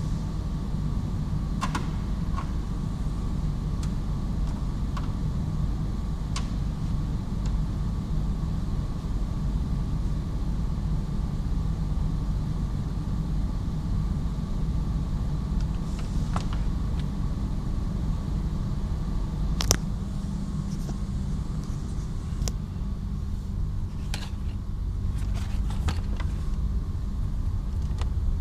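Steady low rumble of workshop background with a faint steady high tone, broken by scattered light clicks and taps of plastic trim and a rubber tailgate seal being handled. One sharper click comes about two-thirds of the way through.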